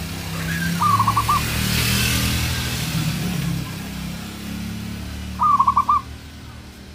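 Zebra dove (perkutut) calling: two short staccato bursts of about five quick cooing notes each, about a second in and again near the end, over a steady low hum.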